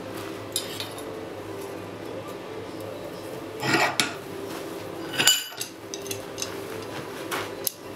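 Steel bar clinking and rattling against a bench vise's copper jaw covers as it is set upright and clamped. There is a rattle just before four seconds in, then the loudest sound, a sharp ringing clink, a little after five seconds, and lighter clicks near the end.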